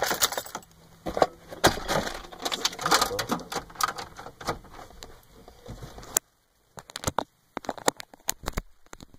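Handling noise close to the microphone: irregular clicks, taps and rustling as the camera is handled and a charging cable is plugged in. About six seconds in, the background noise cuts off suddenly and only scattered sharp clicks remain.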